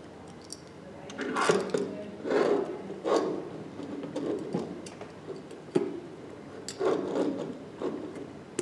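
Silicone ventilation bag of a bag valve mask being handled while a plastic valve is pushed and twisted into its end: irregular rubbing and squeaking with a sharp click about two-thirds of the way in.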